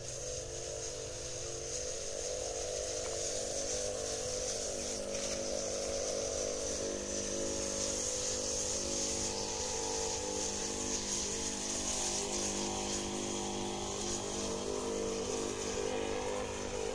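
Backpack power sprayer running steadily as pesticide is sprayed onto an onion crop, its motor giving a constant hum with a steady hiss above it.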